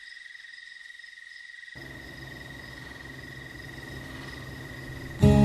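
Steady high-pitched insect trill holding one pitch. About two seconds in, a low rumbling noise joins it, and music starts just before the end.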